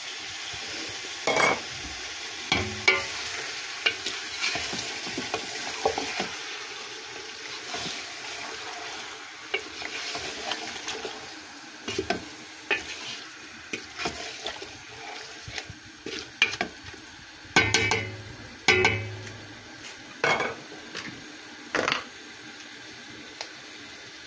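A wooden spatula stirs chicken pieces in a metal pot, knocking and scraping against its sides, over a steady sizzle of the meat frying. The knocks come irregularly, with the loudest pair about three-quarters of the way through.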